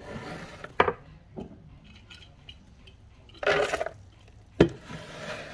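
Knocks and clinks of a plastic Vitamix blender jar holding rinsed, soaked pumpkin seeds as it is handled and set down on a wooden cutting board. There is a short scraping rattle a little past the middle, and the loudest knock comes near the end.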